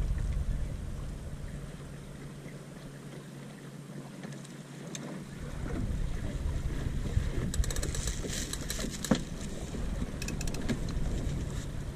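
Wind buffeting the microphone of a camera aboard a small sailing dinghy under way, with the hiss of water and air around the boat. The low wind rumble drops away for a few seconds soon after the start, then returns as the breeze picks up, and a few sharp clicks and taps come in the second half.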